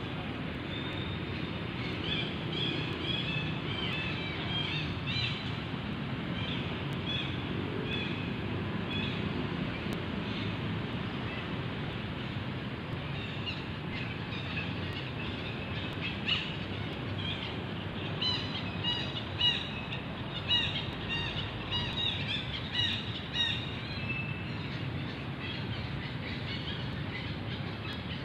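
Birds chirping in many short, high calls, busiest and loudest about two-thirds of the way in, over a steady low rumble.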